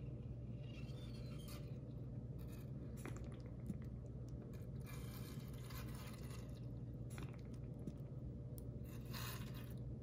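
Faint, scattered soft crinkles and squishes of a small plastic squeeze bottle being squeezed to fill an RC tank's smoke-generator reservoir with water, over a steady low hum.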